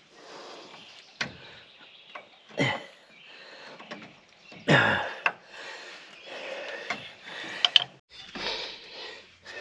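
Hand tools and metal parts being handled: scattered sharp clicks and knocks with scraping in between.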